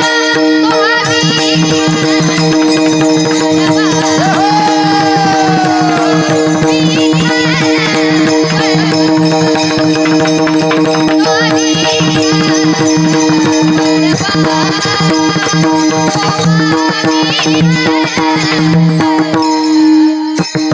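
Varkari kirtan music: a steady held drone with fast, dense pakhawaj drumming over it and a wavering melodic line above.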